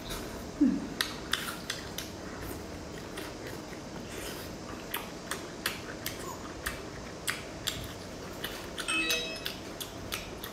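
Eating sounds of sea snails being bitten off a skewer and chewed: a string of short sharp clicks and smacks, the loudest a little under a second in, with a brief squeaky suck about nine seconds in.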